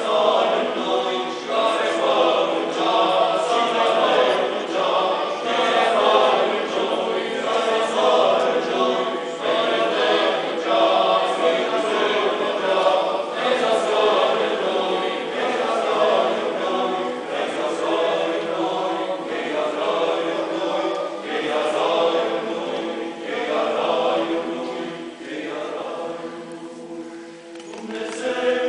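Church choir singing a Byzantine-style Romanian Christmas carol a cappella, several voices together in sustained chant-like phrases. The singing drops quieter near the end, then swells again.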